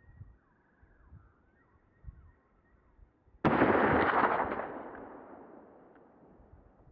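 A single gunshot about three and a half seconds in, loud and sudden, its report rolling away and fading over about three seconds.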